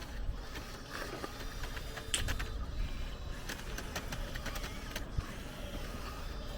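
Scale RC hydraulic excavator working: the whine of its small electric hydraulic pump and motors, with a string of sharp clicks and knocks from about two seconds in to about five seconds in.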